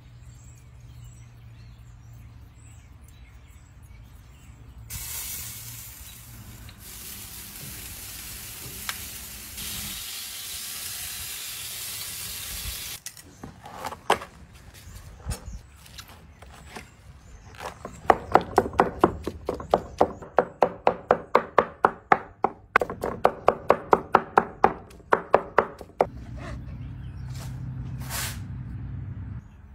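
A steady hiss for several seconds, then a knife chopping cooked chicken into small pieces in a fast, even run of sharp strokes, about four a second, the loudest part.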